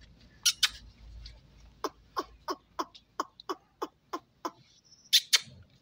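A quick run of about nine short, sharp clicks, roughly three a second, with two brief hissing bursts near the end.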